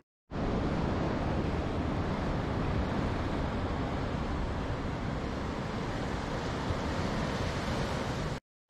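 Steady rush of ocean surf breaking below a clifftop, with some wind.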